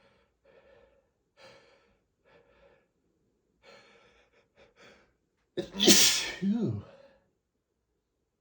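A man sneezes once loudly about five and a half seconds in, after a run of short, faint quick breaths. It is an allergic sneeze set off by dust.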